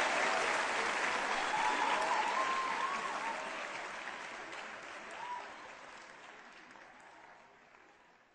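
Audience applauding with a few cheers, the clapping fading steadily away to nothing by the end.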